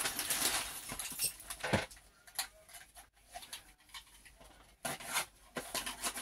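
Plastic packaging rustling and crinkling as a small item is handled and unwrapped, with a sharp click about two seconds in and a quieter pause before more rustling near the end.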